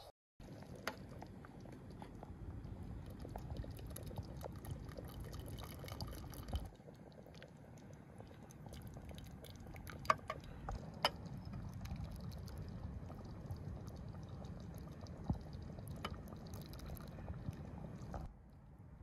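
Thick noodle soup pouring and dripping from a steel ladle back into an aluminium pot, with a few sharp clinks of the ladle against the pot, over a steady low rush.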